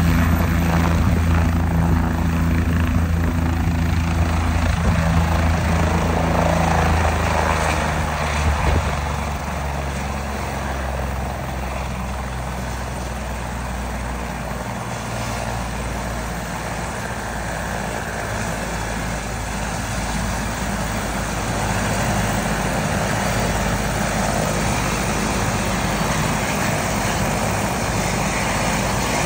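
Medical helicopter running on the ground just after landing, its rotor and turbine making a steady low drone over a rushing noise. About eight seconds in the sound drops to a quieter, lower running, then grows a little louder again later.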